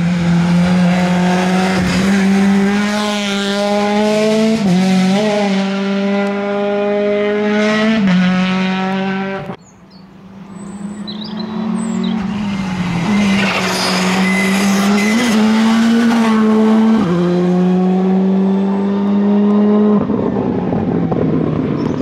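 Rally car engines at high revs under full throttle: one car holds a steady high engine note with brief dips as it lifts and shifts. About halfway the sound drops out abruptly, and a second car's engine builds and holds high revs again.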